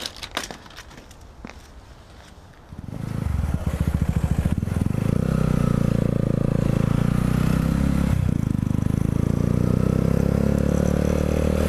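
A few faint clicks, then from about three seconds in a Honda motorcycle engine running loudly while ridden, its pitch rising at first, dipping briefly about eight seconds in, then holding steady.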